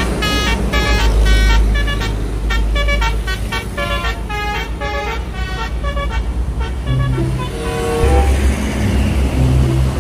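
Telolet bus horn playing a quick run of short tooting notes of changing pitch over a steady low rumble. About eight seconds in it gives way to music with a pulsing bass.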